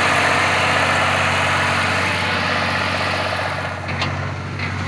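Swaraj 735 FE tractor's three-cylinder diesel engine idling steadily, with two faint clicks near the end.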